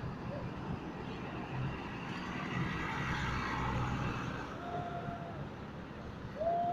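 Tour bus engines running amid traffic noise, then a bus's basuri musical air horn sounds a held note about four and a half seconds in, and again, louder, near the end.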